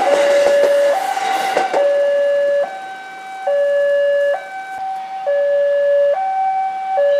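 Railway level-crossing alarm sounding its new two-tone signal, swapping between a low and a higher tone every second or so, warning that a train is passing the crossing. For the first couple of seconds the rumble and rail clatter of a JR 205-series electric commuter train rolling past lies under it and then fades away.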